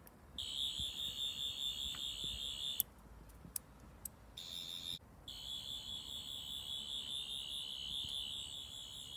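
Rubbertoe Replicas 12th Doctor sonic screwdriver prop playing its electronic sonic sound effect, a high-pitched warbling tone. It sounds three times: for about two and a half seconds, then a brief blip, then a longer run of about four seconds.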